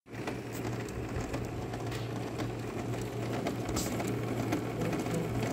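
Canon G3070 inkjet printer's paper-feed mechanism running with a steady hum and scattered clicks, its roller turning without taking in the paper: a paper-feed fault.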